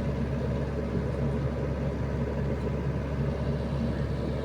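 Diesel engine of a Sany SY75C mini excavator running steadily at working speed, a constant low drone.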